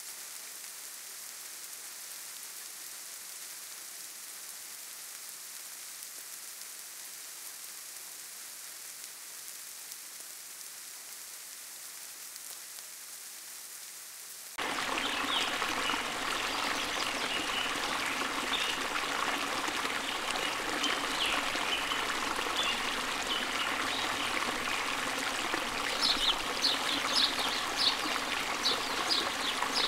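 Ambient nature soundtrack: a steady soft hiss that changes abruptly about halfway through to louder running water of a stream. Short high bird chirps come in over the water near the end.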